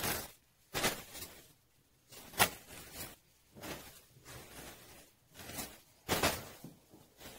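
Clothes being tossed onto a bed and into a suitcase: a string of short fabric swishes and rustles, about eight of them, with the sharpest about two and a half seconds in.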